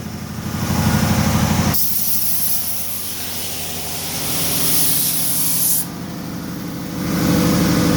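Laguna 37-inch wide belt sander running with a steady hum. From about two seconds in to about six seconds in comes a loud, high hiss as a 16-gauge steel sheet passes under the 80-grit belt and the belt sands the scale off it.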